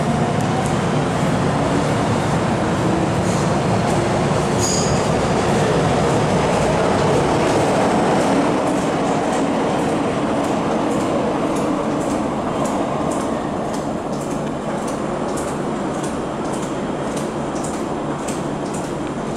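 MTR M-Train (Metro-Cammell electric multiple unit) pulling out of an underground station, with a steady rumble and a rising motor whine as it speeds up. The train noise fades gradually in the second half as it goes into the tunnel, with a faint regular ticking.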